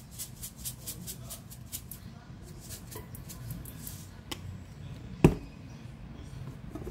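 Roasted sesame seeds shaken from a plastic shaker over bowls of noodles: a quick run of dry rattling ticks for about two and a half seconds. Later a small click is followed by a single sharp knock, the loudest sound, about five seconds in.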